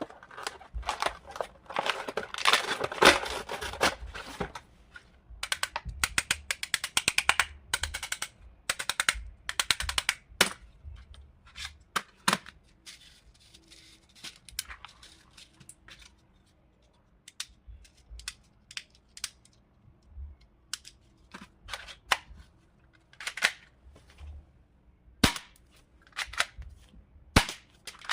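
Full-metal Colt 1911 replica airsoft pistol firing: quick runs of sharp shots over roughly the first ten seconds, then single shots a second or more apart.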